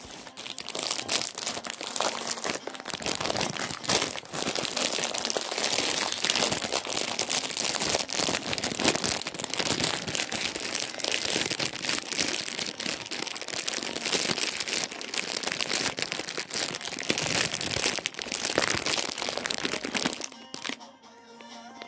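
Continuous crackling rustle of something rubbing against the microphone, made up of many small scratchy clicks, with a short lull near the end.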